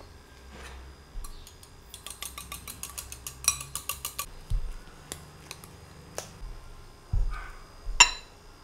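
Wire whisk beating whipping cream in a glass bowl, its metal tines clicking quickly against the glass at about eight strokes a second for a couple of seconds. Near the end comes a dull thump, then one sharp glassy clink.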